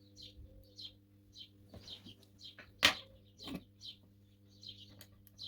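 A small bird chirping repeatedly in short high notes, over a steady low electrical hum. A sharp click about halfway through, and another a moment later.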